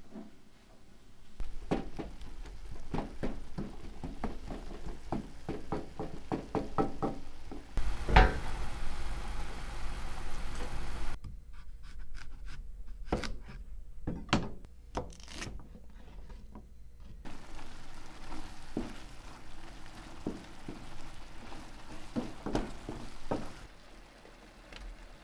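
Kitchen cooking sounds: a wooden spatula tapping and scraping in a frying pan on a gas stove, with one loud knock about eight seconds in, then a knife cutting an eggplant on a cutting board, knocking against the board a few times.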